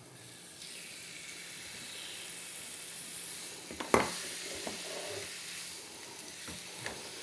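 Seasoned raw chicken pieces sizzling as they land in hot oil and garlic in a nonstick sauté pan and are stirred. The sizzle starts up under a second in, with a sharp knock about four seconds in and a few lighter clicks after it.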